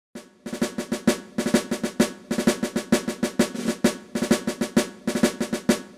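Intro music played on drums: rapid snare-drum strokes and rolls in short phrases, starting a moment in.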